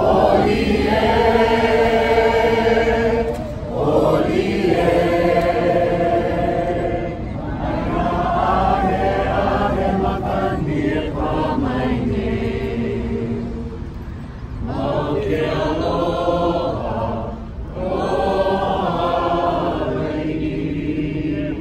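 A group of voices singing a Hawaiian chant together in long held phrases of a few seconds each, with brief breaks between phrases.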